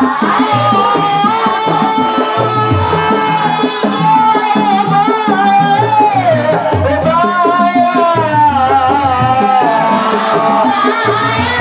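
Devotional group singing with long, gliding sung notes over a steady drum beat and rattling shakers.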